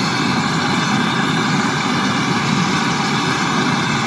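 Gas brazing torch flame burning with a steady hiss while it heats a copper pipe joint on a refrigerator compressor.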